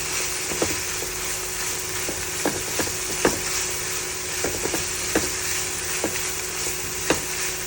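Sliced chicken breast and garlic sizzling steadily in hot oil in a frying pan, with a spatula knocking against the pan about once a second as it is stirred.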